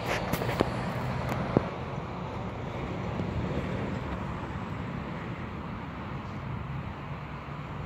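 Outdoor ambience: wind on the microphone over a low, steady rumble, with two sharp clicks in the first two seconds.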